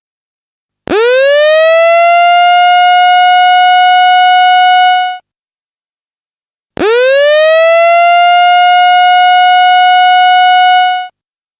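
Alarm siren sounding two long blasts, each sweeping quickly up in pitch and then holding one steady, very loud tone for about four seconds before cutting off, with about a second and a half of silence between. It is a fire-drill evacuation alarm.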